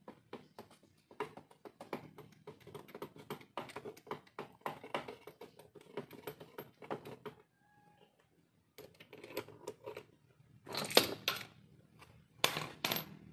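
Quick, irregular metallic clicking and rattling of hand tools and small parts being handled on a scooter engine. It pauses briefly about eight seconds in, and a few louder knocks come near the end.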